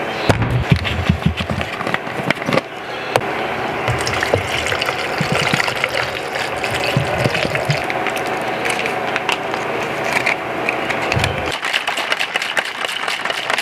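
Water poured from a plastic bottle into a plastic shaker cup, with handling clicks, then the cup shaken near the end.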